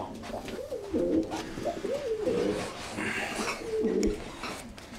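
Racing pigeon cock cooing over and over, a string of coos that swell and fall in pitch, the courting call of a cock with a newly paired hen.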